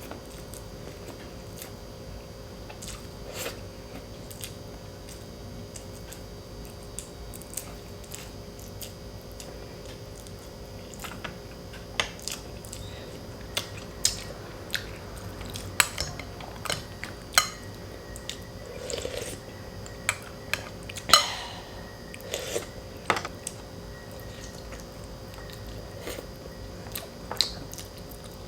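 A person chewing and biting food close to the microphone, with short wet smacks and clicks that are sparse at first and come thick and fast from about halfway through, the loudest about three quarters of the way in.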